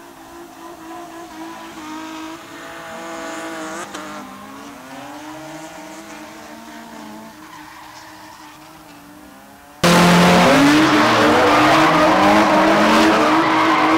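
Drift cars, a Nissan 350Z among them, sliding in tandem: engines revving up and down with tyres skidding and squealing. About ten seconds in, the sound jumps suddenly much louder, a dense wash of tyre noise with the engines rising and falling through it.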